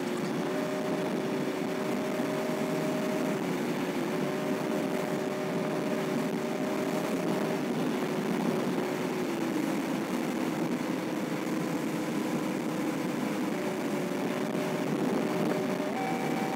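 Vehicle cabin noise while driving at highway speed: steady road and tyre noise under a constant hum, whose pitch drops slightly about nine seconds in and steps up again near the end.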